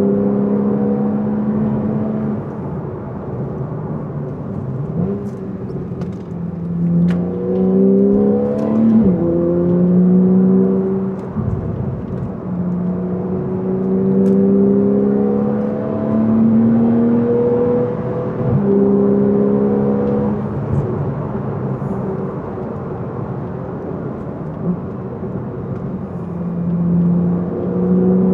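Porsche 911 flat-six engine under way, its note climbing steadily as the car accelerates and then dropping back at each gear change, several times over.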